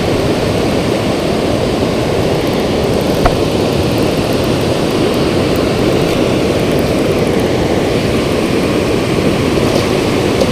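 Steady rushing of water pouring through a dam spillway, an unbroken even wash of noise.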